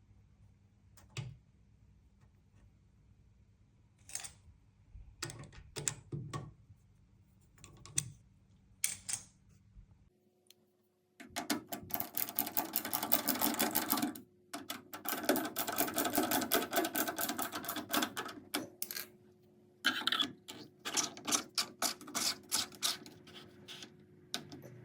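Scattered clicks and knocks, then long runs of rapid clicking as the screws holding the washing machine's drain pump are driven back in.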